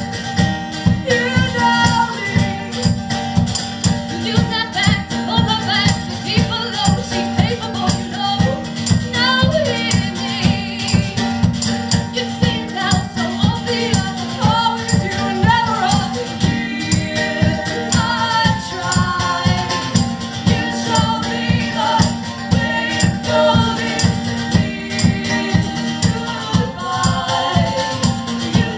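Live band music: voices singing over a fast, steady rhythmic accompaniment.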